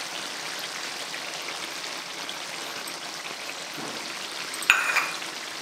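Brinjal, tamarind and tomato gravy for vangi bath simmering in oil in an open kadai: a steady sizzling hiss. A sharp knock comes near the end, with a short ring after it.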